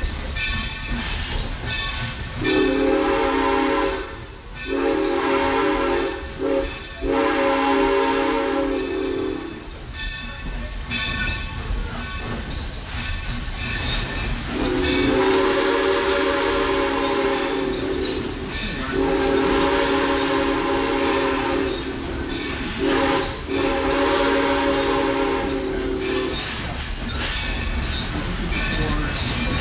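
A train sounds its horn, a chord of several notes, in two sets of the grade-crossing signal: long, long, short, long. A low rumble runs underneath.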